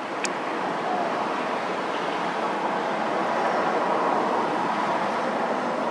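Steady rushing outdoor background noise, building slightly, with one sharp click just after the start.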